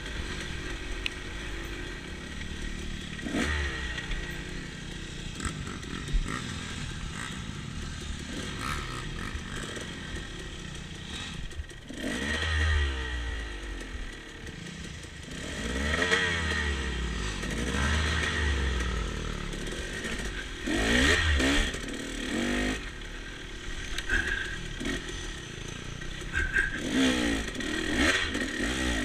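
Dirt bike engine heard from on board, revving up and falling back again and again as it is ridden over a rough trail, with the odd knock.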